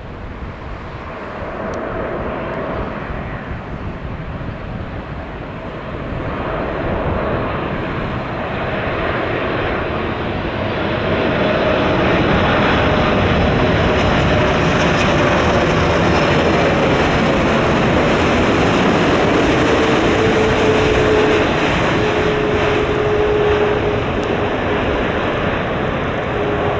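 Four-engined Boeing 747-8 jet on landing approach, its engines' roar growing louder as it nears and then holding at full strength. A faint tone within the roar slides lower in pitch over the second half as the jet passes.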